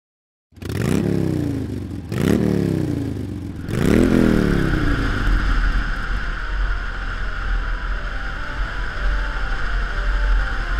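Motorcycle engine revving up sharply three times, each rev falling slowly away, then running steadily under way with a deep rumble of wind and road noise.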